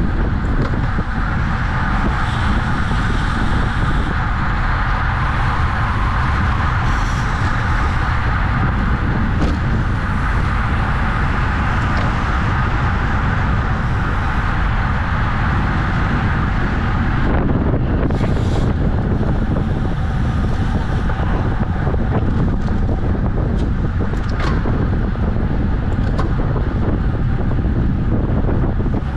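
Steady wind rushing over a camera microphone on a bicycle ridden at race speed, with a low rumble underneath; the sound changes character about two-thirds of the way through.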